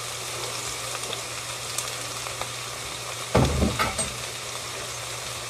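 Chicken frying in a pan, a steady sizzle. A little over three seconds in comes a brief knock and clatter.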